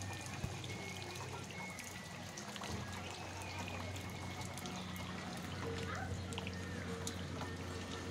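Rainwater trickling and dripping, with many small scattered drip ticks over a steady wash of water noise and a low constant hum.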